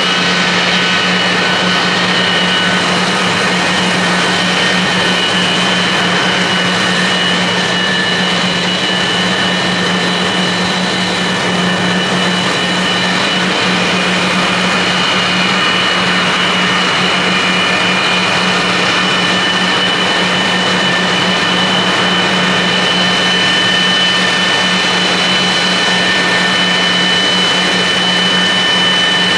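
Kawasaki C-1 transports' Pratt & Whitney JT8D turbofan engines running on the ground: a steady jet roar with several high whining tones held level throughout.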